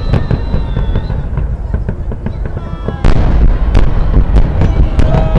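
Fireworks display: a dense run of booms and crackling bursts over a constant low rumble, turning louder with a sharp bang about three seconds in.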